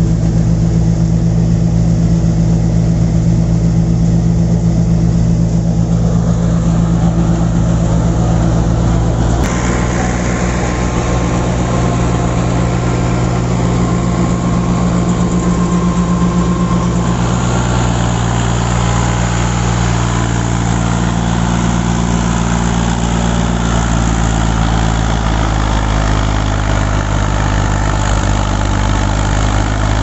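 Tractor diesel engine running steadily under load, driving a PTO-powered paddy thresher, with the thresher's machinery adding a rushing noise. The rushing grows louder partway through.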